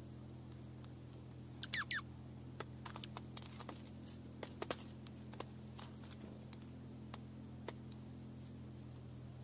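Small birds, a dark-eyed junco and a chickadee, feeding on a metal tray feeder: irregular light taps and clicks of pecking and hopping among the seed, busiest in the middle. About one and a half seconds in comes a brief high squeak that sweeps downward, the loudest sound. A steady low hum of distant road noise runs underneath.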